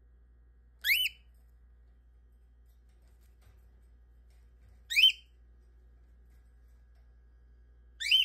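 A cockatiel gives three short whistled calls, each rising sharply in pitch, spaced about four seconds apart. The last one comes right at the end.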